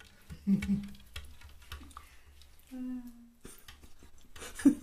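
A cat's paws patting and rubbing against window glass in a run of soft taps. A short low hum comes about half a second in, and a steadier one near the three-second mark.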